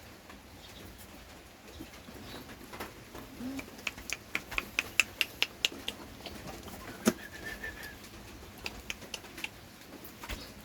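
A puppy eating, its mouth making a run of quick clicks at about four a second. Then comes one sharp click and a short high note.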